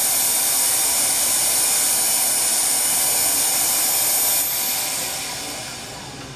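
Dense electronic noise from a setup of effects pedals played through amplifiers, a steady hiss heaviest in the upper range. About four seconds in it drops and fades away gradually.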